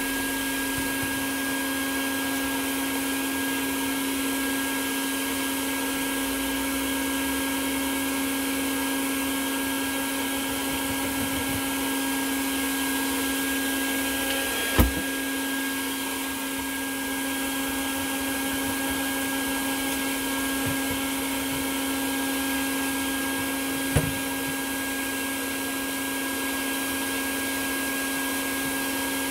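Bee vacuum running steadily, its motor giving a constant hum as it sucks a honeybee swarm out of an electrical meter box. Two short sharp knocks break through, one about halfway and one later on.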